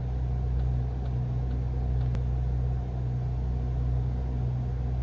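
Mercedes-Benz Actros truck's diesel engine idling steadily in neutral, heard from inside the cab, with a faint click about two seconds in.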